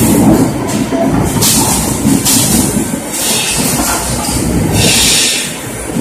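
Veneer production line machinery running: a dense rattling clatter over a low rumble, with several short bursts of hiss.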